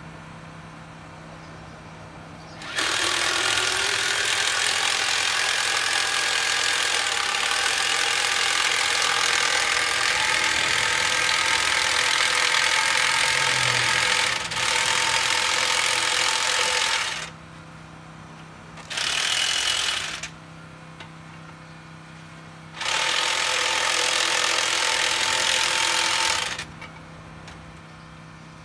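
Hand-held cordless power tool running in three bursts: a long run of about fourteen seconds, a short one of about a second, then one of nearly four seconds. A steady low hum is heard in the pauses.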